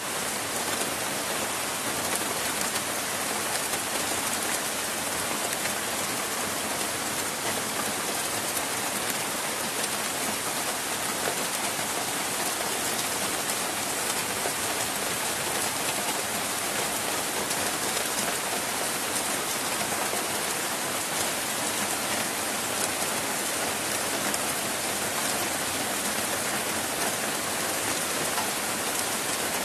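Heavy rain pouring down steadily, a dense, even hiss that does not let up.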